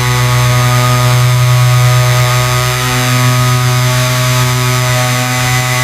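A power tool's motor running steadily at one unchanging pitch, with a loud hiss over it.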